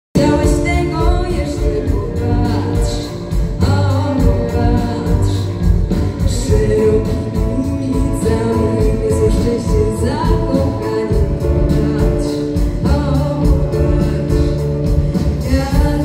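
Girls singing a song with a live band: drum kit keeping a steady beat under the voices, with grand piano and other instruments.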